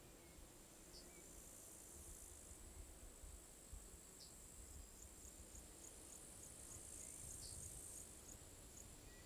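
Faint, high-pitched trilling of crickets, swelling in the second half with a run of quick, evenly spaced pulses, plus a few brief high chirps.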